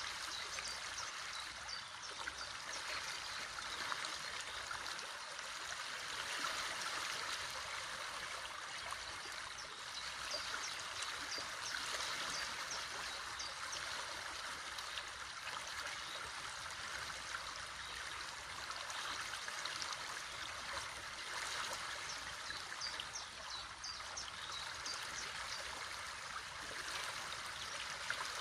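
A river running steadily, a continuous rushing and splashing of water, with small birds giving short high chirps now and then over it.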